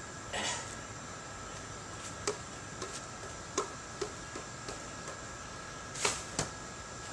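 Light, scattered slaps of a hand on a basketball spinning on an umbrella tip, with a louder pair near the end. A steady high whine runs underneath.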